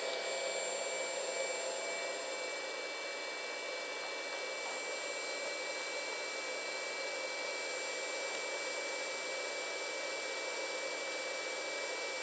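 Steady whirring hum of a fan, with faint thin high-pitched whines held on one note.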